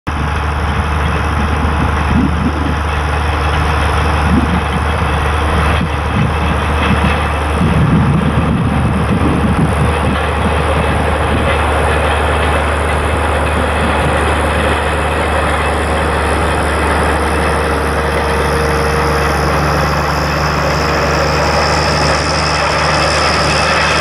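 International Harvester 956XL tractor's six-cylinder diesel engine running steadily, with the rumble of the tractor and its field roller crossing the field.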